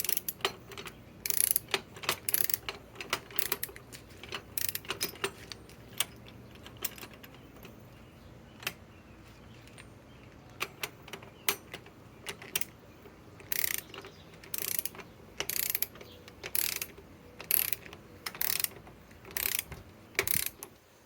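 Hand torque ratchet being cranked to tighten a nut to a set torque: irregular runs of pawl clicks on the back-strokes. In the second half come longer, louder ratcheting strokes.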